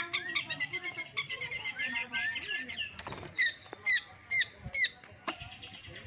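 Caged long-tailed shrike (cendet) singing: a fast chattering run of high chirps for about three seconds, then four separate sharp, down-slurred chirps about half a second apart.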